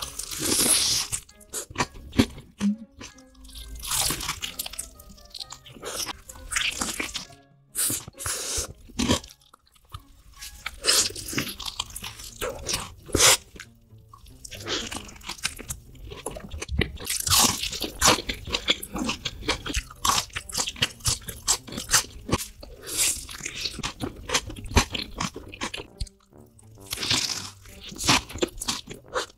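Close-miked eating of a burger: bites and chewing with crunching, coming in irregular bursts.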